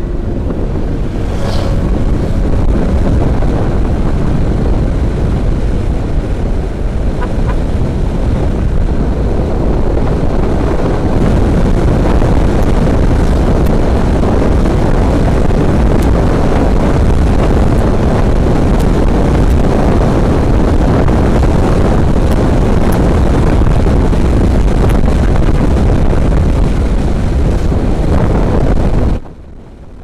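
Wind noise buffeting the microphone of a helmet camera on a motorcycle riding at speed, with the bike's running sound underneath; it cuts off suddenly near the end.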